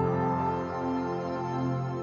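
Soft new-age background music: a sustained chord ringing on and slowly fading.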